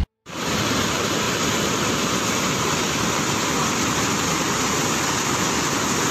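Muddy floodwater rushing in a fast torrent, a steady, loud rush of water that starts after a brief silence.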